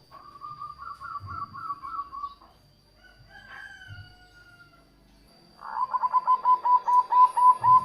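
Zebra dove (perkutut) calling. First a rippling trill, then a fainter falling note. About five and a half seconds in comes a fast, loud run of short, evenly repeated cooing notes, about five a second.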